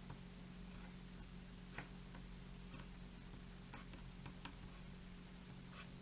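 Faint, scattered light ticks and clicks of soldering work on header pins, over a low steady hum.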